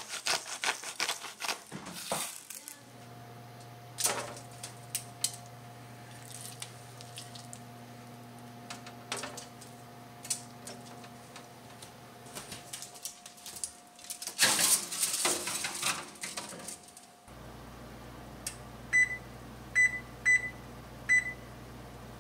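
Rapid crackly clicking at the start, then a steady low hum with scattered clicks and a loud clatter about two-thirds of the way through. Near the end an electric oven's control panel beeps four times as its timer is set for a 300° bake.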